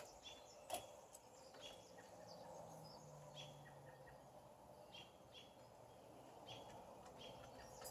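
Faint dawn birdsong: scattered short, high chirps and calls from several birds, over a faint steady hum of distant road traffic.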